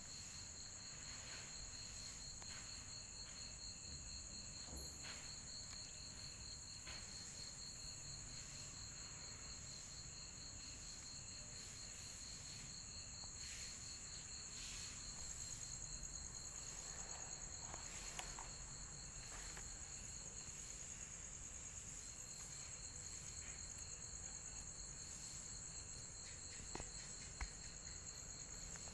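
Night insects chirping steadily and faintly, two trills at different pitches, the lower one pulsing, with a few faint taps.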